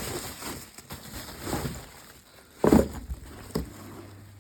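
Rustling and knocking as things are lifted and moved about in a box, with a louder thump a little under three seconds in.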